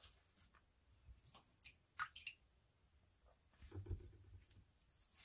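Faint handling sounds: light ticks and paper napkin rustles, and a boiled sweet potato lifted wet out of a bowl of water and laid on a paper napkin about four seconds in.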